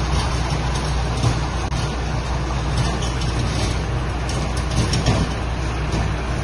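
Flatbed tow truck's diesel engine running steadily under hydraulic load while a motorhome is winched up its tilted bed, a low even hum with a few light clicks.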